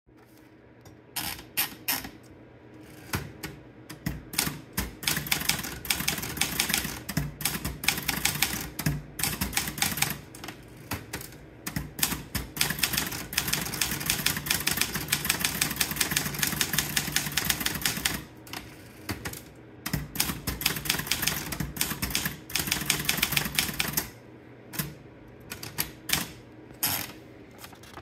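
Erika Daro manual portable typewriter being typed on: type bars striking in quick runs of keystrokes. A few scattered clicks come first, and the runs break off briefly about two-thirds of the way in and again near the end, leaving a few last single strikes.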